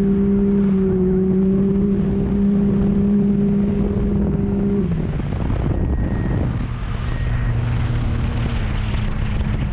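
Off-road race vehicle's engine held at steady high revs, then dropping sharply in pitch about five seconds in as it backs off, running on at a lower steady note under a rough rush of wind and tyre noise.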